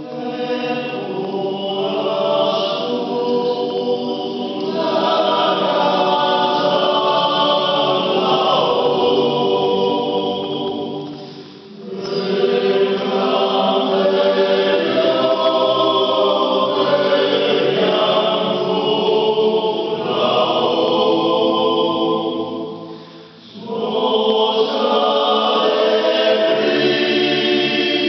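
A men's choir singing sustained chords in harmony. There are two brief breaks between phrases, about eleven and twenty-three seconds in.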